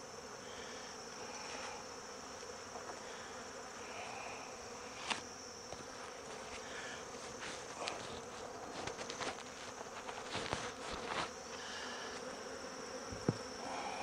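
Honeybees buzzing steadily around an open hive full of bees, with scattered light clicks and taps, most in the second half.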